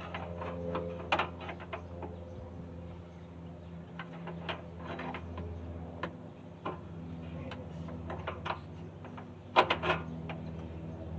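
Scattered clicks and knocks of tools and car body parts being handled during repair work, with a cluster of louder knocks near the end, over a steady low hum.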